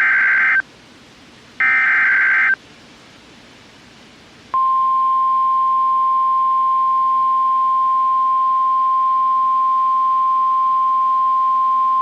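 Emergency alert signalling: the tail of one short buzzing SAME digital header burst, a second burst about a second and a half in, then about four and a half seconds in a steady single-pitch NOAA Weather Radio 1050 Hz warning alarm tone begins and holds, announcing a new warning.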